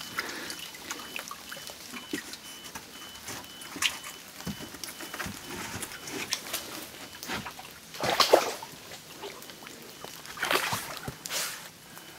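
Scattered knocks, scrapes and splashes of wooden boards being shifted in shallow muddy water under a stuck SUV, with rain dripping. The loudest splashes or scrapes come about eight seconds in and twice more near the end.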